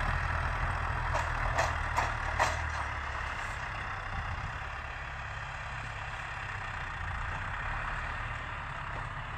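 Farm tractor engine running steadily, its low hum dropping away about three and a half seconds in. A few short sharp clicks come in the first couple of seconds.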